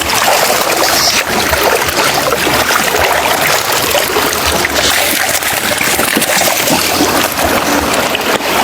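Seawater rushing and splashing steadily, with no single distinct knock or call standing out.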